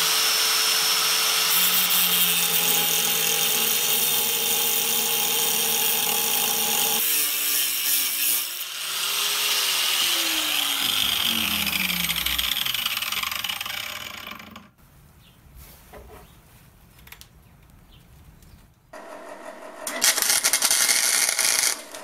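Chicago electric angle grinder with a cut-off disc cutting a slot into a chrome motorized-bike exhaust pipe: a loud, steady grinding whine. About seven seconds in it is switched off, and its pitch falls as the disc spins down. Near the end, a couple of seconds of welding crackle as the bent pipe is welded back together.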